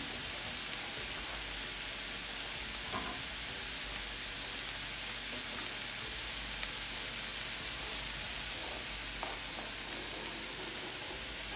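Chopped kale frying in a pan, a steady sizzle, with one brief light tap a little past halfway.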